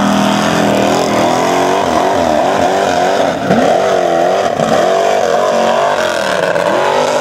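Formula Offroad hillclimb buggy's engine revving hard as the buggy climbs a steep gravel slope with its wheels spinning. The revs drop and climb again several times as the driver works the throttle.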